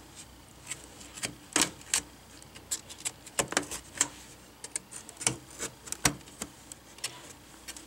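Retaining clips on a Dell Inspiron 14 5447 screen assembly snapping loose as a hobby knife pries the metal back cover away from the plastic bezel: a string of sharp, irregular clicks and snaps, several a second.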